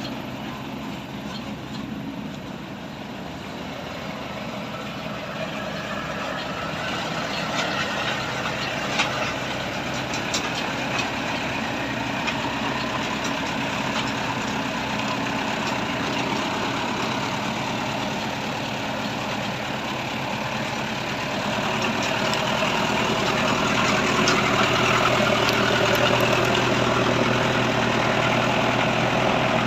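Truck engine running steadily, with a few light clicks in the first third, growing louder in the last quarter.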